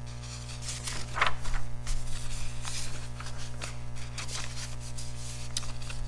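Sketchbook paper pages being handled and turned, giving scattered dry rustles and brushing rubs, over a steady low electrical hum.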